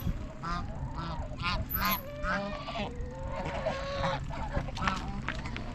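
Geese honking: a quick series of short honks, then a longer, steadier call lasting about a second and a half, over a low steady rumble.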